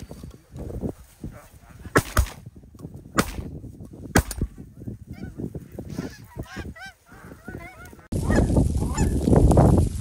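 A flock of geese honking, with a few sharp, loud calls in the first four seconds and a run of arched honks after that. About eight seconds in, the sound cuts to a louder, dense chorus of goose honking and gabbling.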